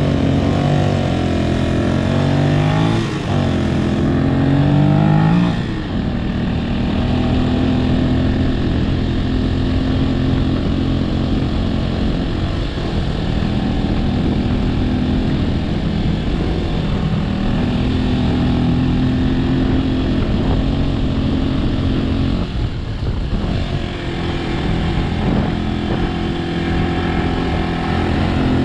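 Vehicle engine accelerating, its pitch climbing in a few sweeps during the first five seconds as it works up through the gears, then running at a steadier speed with the pitch drifting up and down. A steady rushing noise runs under it.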